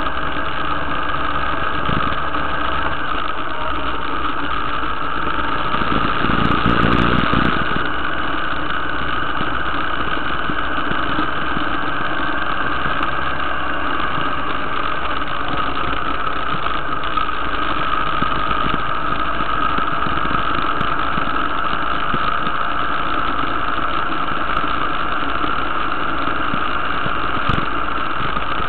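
Motorcycle engine running steadily while riding at road speed, with a brief louder low rumble about seven seconds in.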